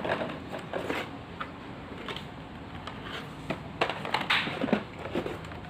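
Plastic and cardboard packaging of a Hot Wheels diecast car crackling and crinkling as it is handled and opened, with a run of louder crackles and clicks past the middle.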